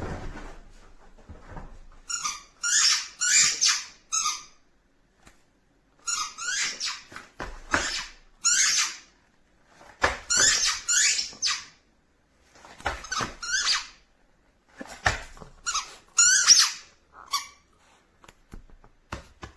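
Squeaky rubber dog toy being squeezed over and over, giving short high-pitched squeaks in clusters of two to four, with brief pauses between clusters.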